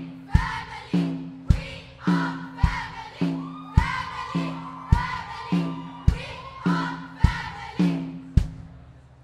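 A group of voices singing over a backing track with a heavy, steady drum beat just under twice a second and a bass note on each beat.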